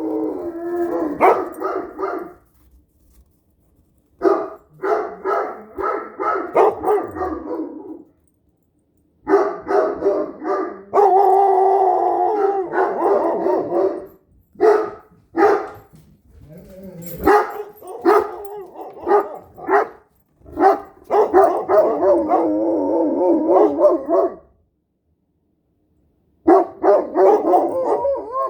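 A Great Dane and a standard poodle howling together, with wavering howls mixed with barks and yips. The noise comes in several bouts with short pauses between them.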